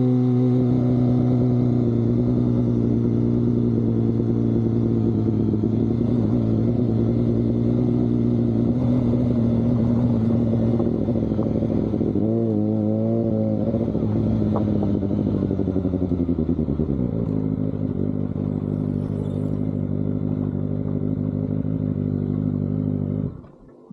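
Kawasaki ZX-25R inline-four engine through an Austin Racing aftermarket exhaust, running steadily. The revs rise and fall briefly about halfway through and drop a few seconds later. The sound cuts off suddenly near the end.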